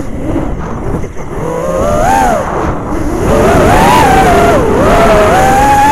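FPV racing quadcopter's four brushless motors (2306, 2750 kV) with 5-inch props, heard from the onboard camera's microphone. The whine drops as the throttle is cut at the start, leaving mostly wind rush, then rises and falls with two throttle punches and holds a steady whine near the end.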